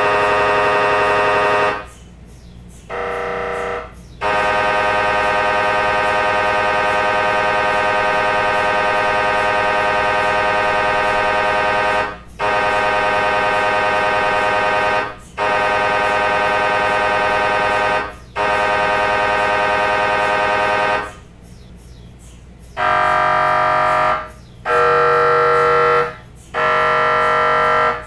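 MRI scanner gradient coils buzzing in loud, steady, pitched tones that run for several seconds at a time, broken by short gaps. Near the end the tone changes to three shorter buzzes of a different pitch, about a second and a half each.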